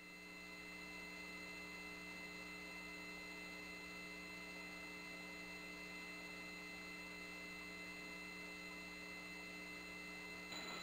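Faint steady electrical hum on a launch-control communications line, made of several steady tones layered together.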